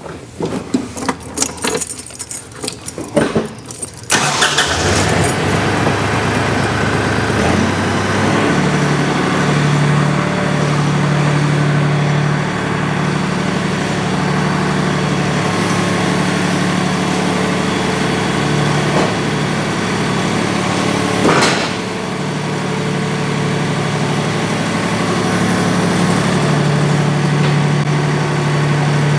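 Kioti CK10-series compact tractor's diesel engine starting about four seconds in after a few knocks and clicks, stepping up in speed, then running steadily as the tractor climbs the ramps onto the trailer. One sharp knock about 21 seconds in.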